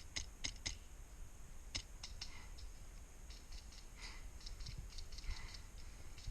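Airsoft gun shots: sharp snapping clicks, three in quick succession in the first second, another near two seconds in, then fainter scattered clicks.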